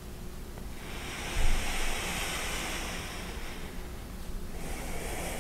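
A person breathing deeply close to the microphone: one long, hissing breath of about three seconds with a low thump near its start, and a second breath beginning near the end.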